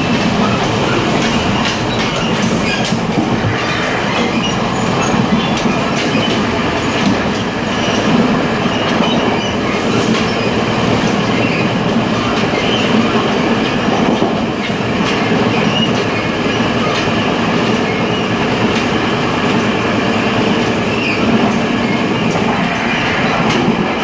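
Running noise in the open gangway between two Taiwan Railways Chu-Kuang Express passenger carriages on the move: loud, steady wheel-and-rail noise with a dense clatter of clicks and rattles throughout.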